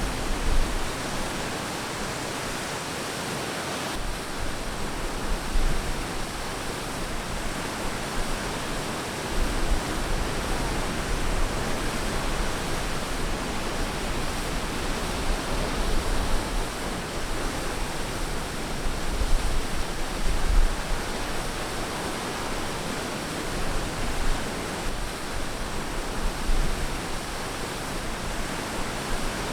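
Ocean waves washing on a beach: a steady rushing surf noise that swells a little every few seconds.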